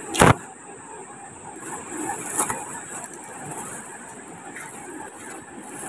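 Steady rush of a shallow river running over stones, with a sharp knock about a quarter second in and a smaller one about two and a half seconds in, while a cast net holding a caught bocachico is worked on the stony bank.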